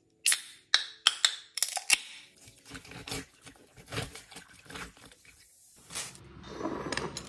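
A can of carbonated energy drink (Monster Energy Zero Ultra) popped open with a sharp crack and hiss, followed by a few clinks, then the drink poured over ice in a tumbler, crackling and fizzing with small clicks of ice. Near the end a background of room noise rises.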